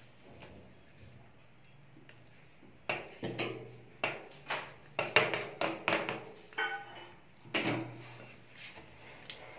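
Metal spatulas scraping and clicking against a frozen steel ice-cream plate as they scrape up and roll the ice cream: a quick run of sharp scrapes and taps starting about three seconds in and ending about eight seconds in, with a short ringing tone near seven seconds.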